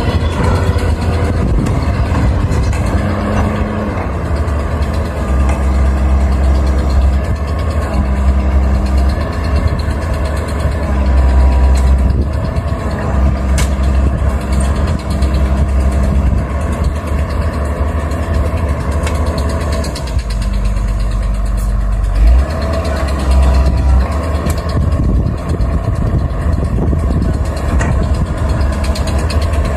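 Caterpillar 320 excavator's diesel engine running under hydraulic load while it loads soil into a dump truck, the pitch rising and falling with each dig, swing and dump. Scattered knocks from the work, with one sharp thump about 22 seconds in.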